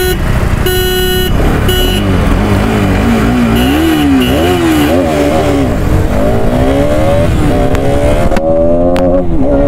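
Three short horn toots, then a stage-2-modified Bajaj Pulsar RS200's single-cylinder engine revving up and down before pulling away hard. Its pitch climbs steadily through the gears, dropping at each shift near the end.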